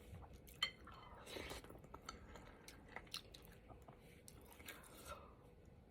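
A person chewing food close to the microphone, with soft wet mouth clicks and smacks scattered through.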